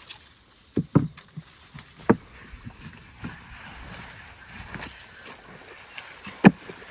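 A few sharp, hollow knocks and thuds at uneven intervals, with lighter taps between them. The loudest knock comes near the end.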